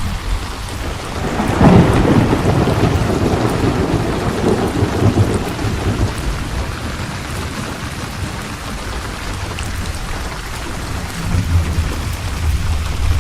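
Steady rain with thunder: a loud thunderclap about one and a half seconds in, rolling for several seconds, and another low rumble near the end.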